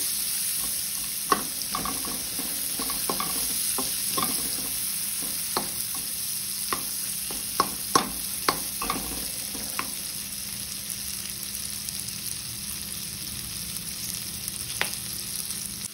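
Chopped onion sizzling as it fries in hot oil in a pan, with a steady hiss. It is stirred, and a spatula clicks and knocks against the pan, often in the first ten seconds and only now and then after.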